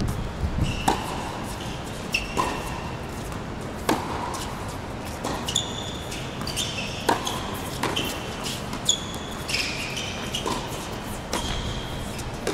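Tennis rally on a hard court: a tennis ball struck by racket strings and bouncing, sharp pops about every second, with short high squeaks in between.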